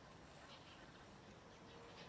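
Near silence: faint outdoor background hiss.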